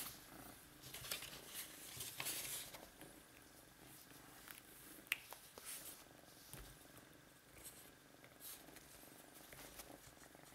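Young domestic cat purring quietly while being stroked, with soft rustling of fur and paper and a sharp tick about five seconds in.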